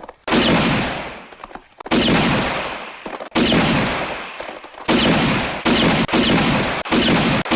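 Western film gunshot sound effects: about eight shots, each a sharp crack with a long echoing decay, the later ones following faster.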